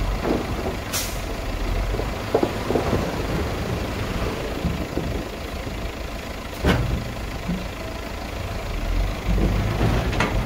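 Dump truck engine running steadily while earth and rocks slide off its raised, tipped bed. A short hiss comes about a second in, and a sharp knock a little past halfway.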